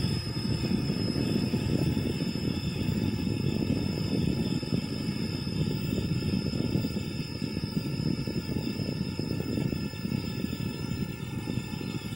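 Yuneec Typhoon H Plus hexacopter hovering overhead, its six rotors running steadily while it carries a bailer on a line. The sound is a continuous low rushing noise with a faint higher whine.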